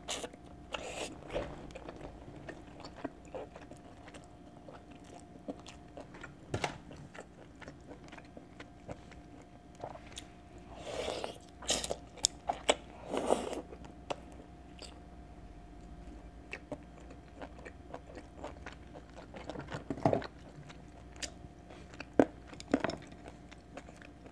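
Close-miked eating: biting and chewing tender stewed chicken off the bone, with scattered small wet mouth clicks and smacks and a few louder bites about halfway through.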